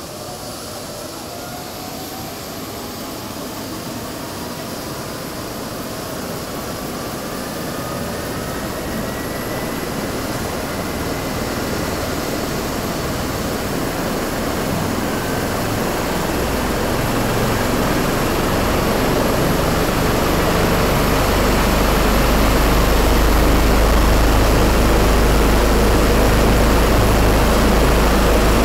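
A Eurocopter EC135 rescue helicopter's twin turbine engines spool up on the ground as the rotor runs up to speed before takeoff. A whine rises in pitch over the first ten seconds or so. The whole sound grows steadily louder, and a low rotor rumble builds strongly through the second half.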